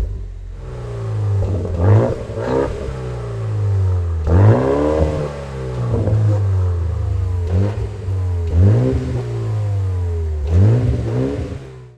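BMW M135i F70's turbocharged four-cylinder engine through a Scorpion aftermarket stainless exhaust, revved in quick blips: about six sharp rises in revs, each falling slowly back toward idle, with a longer one held near the middle.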